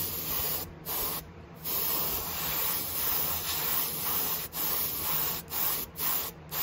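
Gravity-feed airbrush spraying paint, a hiss that starts and stops as the trigger is pressed and released: several short bursts and one longer spray of about three seconds in the middle.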